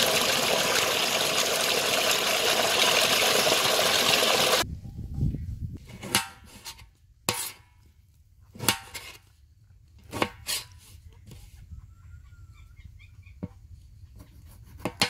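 Water gushing steadily out of a pipe, cut off suddenly about four and a half seconds in. Then a knife chopping tomatoes on a metal tray, single sharp knocks about one to two seconds apart.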